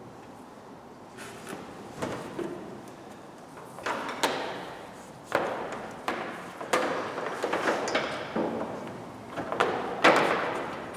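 Irregular knocks and clunks of tools and fittings being handled while a pressurized fuel-system cleaning tool is hooked up to the engine, busier in the second half.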